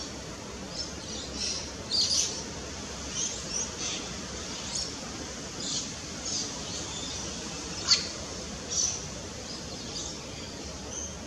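Small birds chirping: short, high chirps come every second or so, with a sharper, louder one about eight seconds in.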